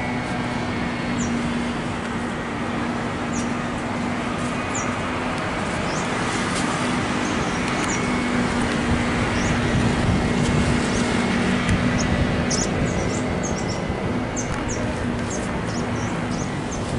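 Steady city traffic noise with a low, steady hum, and small birds chirping now and then, more often in the second half.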